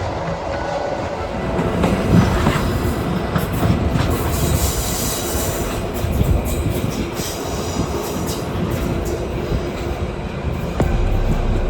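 Old passenger train running along the line: steady rolling noise with wheels clattering over the rail joints, and a brief high squeal of wheels about four to five seconds in.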